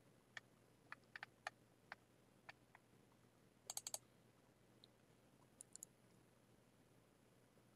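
Faint computer mouse clicks over near-silent room tone. Scattered single clicks come first, then a quick run of louder clicks just under four seconds in and a few more near six seconds.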